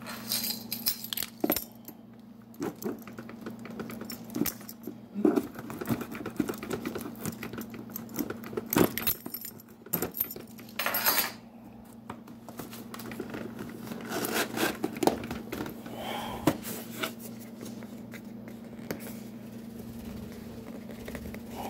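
Cardboard box and plastic packaging being handled while a box is opened: scattered taps, scrapes and crinkles, with a longer rustle about eleven seconds in. A steady low hum runs underneath.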